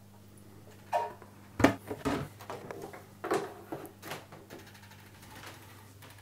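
The white plastic lid of a Fluval Flex aquarium being laid back on the tank and slid into place, with a string of short knocks and scrapes of hard plastic. A faint steady hum runs underneath.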